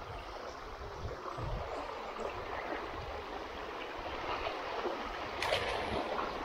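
Steady rush of flowing water, the river current around a kayak, with a few low bumps and one brief sharp sound about five and a half seconds in.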